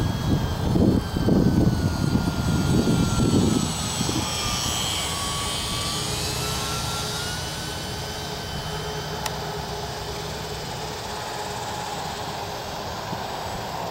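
E-flite UMX Yak 54 micro RC plane's electric motor and propeller whining overhead, the pitch dipping about five seconds in and rising again. A loud, gusty low rumble runs under it for the first four seconds.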